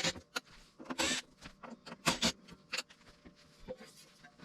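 Hands handling small parts of the compressor's gauge panel: a string of sharp clicks and taps with a short rustle about a second in, growing sparser in the second half.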